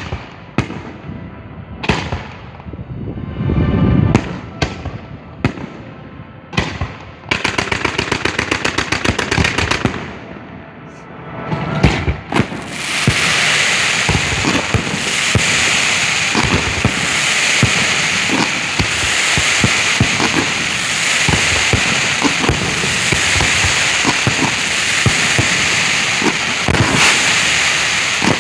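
Professional display fireworks fired at close range. First come separate mortar launches and shell bursts with a fast, even string of shots among them. About halfway in it turns into a dense, continuous crackle with bangs all through it.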